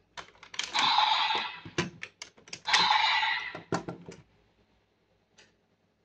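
Sharp plastic clicks and two scratchy, hissing stretches of about a second each as a DX toy transformation belt and its Fever Slot Raise Buckle are handled; it falls quiet after about four seconds.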